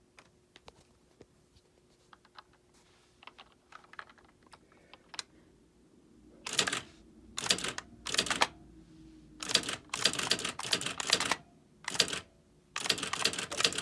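Computerized electronic typewriter being typed on: light key clicks at first, then, from about halfway through, loud rapid rattling bursts as the print mechanism strikes out several characters at a time.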